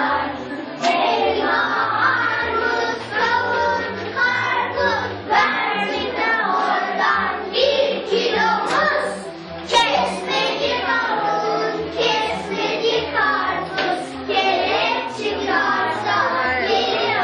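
A group of children singing together, with a steady instrumental accompaniment underneath.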